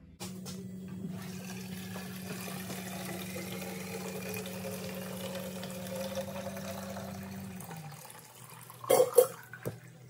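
Milk replacer running from a mixer tank's spout valve into a plastic calf bottle, a steady pouring with a slowly rising tone as the bottle fills. The flow stops about eight seconds in, followed by a couple of loud knocks.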